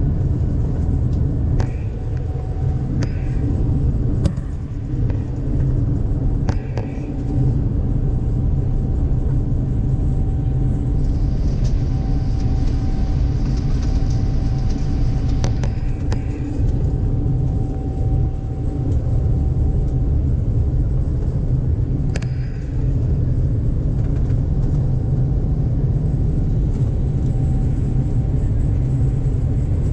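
Boeing 787-9 taking off, heard from inside the passenger cabin: a loud, steady, deep rumble of the engines at takeoff power and the runway roll. A few light clicks and rattles are scattered through it.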